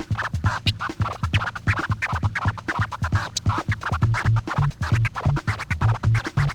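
Turntable scratching: the jackhammer scratch, a record sample pushed in quick stuttering strokes, over a hip-hop beat with a bass pulse about three times a second.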